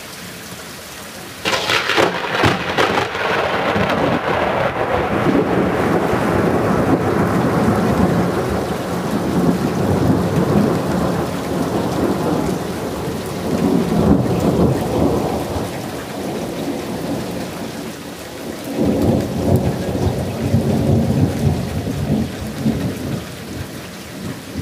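Thunder from a close lightning strike: a sudden sharp crack about a second and a half in, then long rolling rumbling thunder that swells again twice before fading. Rain falls throughout.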